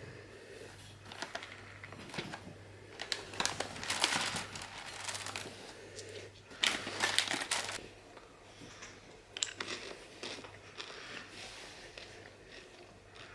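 Packaging being handled: irregular bursts of crinkling and rustling, with a few light clicks and knocks in between.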